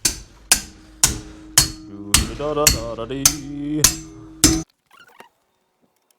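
Hammer blows on a strip of stainless steel flat bar to bend it: about nine ringing metal strikes at roughly two a second, stopping about four and a half seconds in.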